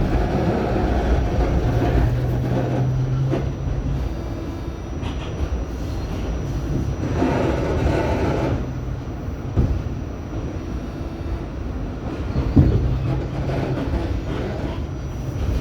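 New York City subway train running: a steady rumble of wheels on the track, with a low motor hum that comes and goes and a few sharp knocks.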